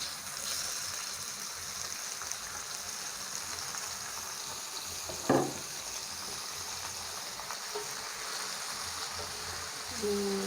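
Chopped squid sizzling in hot oil in a frying pan, the hiss breaking out suddenly as it goes in and then running steadily. A single sharp clack about five seconds in.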